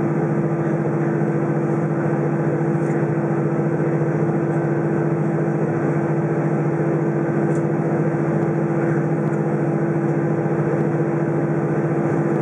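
Cabin noise inside an Airbus A320 on the ground: a steady drone of the engines at idle and the cabin air system, with a strong, even low hum.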